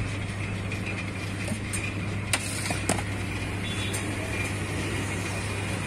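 A steady low motor hum, with two sharp clinks of steel utensils near the middle.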